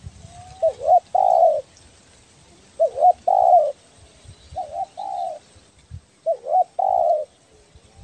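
Spotted dove (tekukur, the 'belah dada' type) cooing: four phrases about two seconds apart, each a quick wavering double note followed by a longer held coo.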